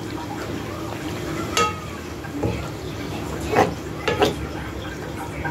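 A utensil stirring creamy penne pasta in a non-stick frying pan, knocking against the pan a few times: once about a second and a half in with a brief metallic ring, and twice more a little past the middle. A steady low hum runs underneath.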